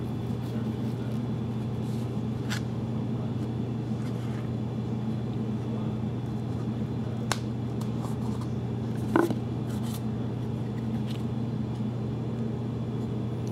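A steady low hum throughout, with a few light clicks and taps from hands handling a trading-card box and its cards; the sharpest tap comes about nine seconds in.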